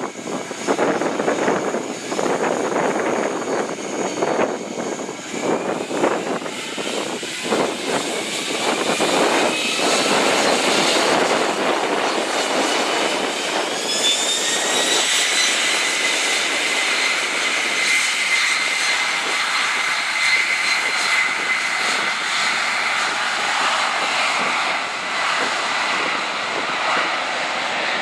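Boeing 767 twin-jet airliner taxiing, its engines sending out a steady jet whine that rises in pitch about halfway through as thrust is added. Gusts of wind buffet the microphone in the first half.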